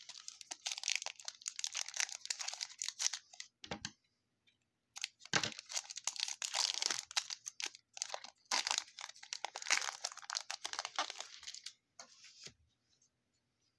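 Trading card pack wrapper being torn open and crinkled, in three long bursts of crackling with a short one near the end.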